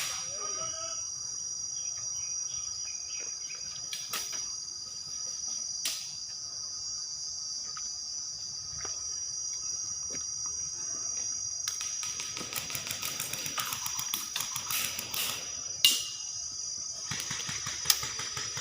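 Steady high-pitched insect chorus. Over it come scattered sharp snaps of airsoft BB guns firing, with a quick run of rapid ticks in the second half and the loudest single shots near the end.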